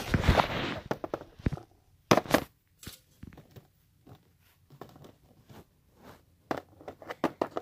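Small plastic toys being handled and set down on a cardboard box: a rustle in the first second, then a couple of sharp clicks and scattered light taps.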